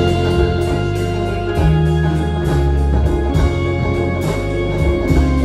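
Live band playing an instrumental passage: banjo and double-neck electric guitar over drums and heavy low bass notes, with regular drum hits.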